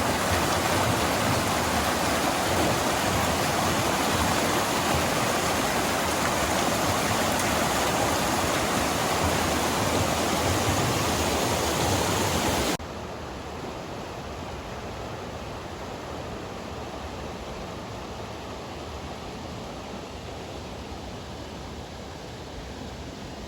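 Loud, steady rush of river water over rapids. A little past halfway it cuts abruptly to a quieter, softer flow.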